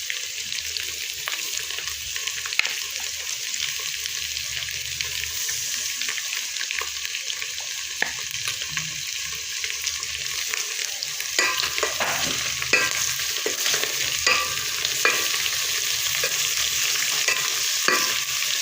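Offal frying in its own oil in a saucepan with freshly added onions and tomatoes, a steady sizzle throughout. A spoon stirs and scrapes against the pan, the clicks and scrapes coming more often in the last third.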